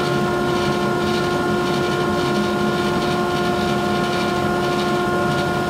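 Grizzly G0458Z open-end drum sander and its dust collector running steadily together: a constant machine hum with a few steady whine tones over rushing air.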